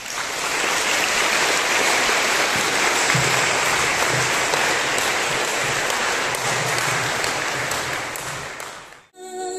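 A large audience applauding, clapping steadily for about nine seconds, then dying away. Just before the end, a few sustained keyboard notes begin.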